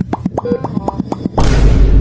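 Background music with a quick, steady percussive beat. About one and a half seconds in, a loud, deep, noisy boom-like sound effect cuts in over it.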